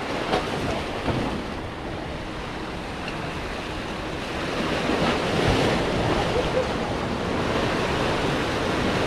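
Sea waves washing in and breaking against jetty rocks, with wind on the microphone. The surf swells louder about halfway through.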